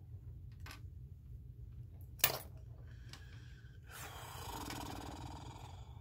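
Small clicks from handling makeup packaging: a faint click just under a second in and a sharp plastic click a little after two seconds, over a steady low hum. From about four seconds in, a breathy, grunt-like voice sound lasting nearly two seconds.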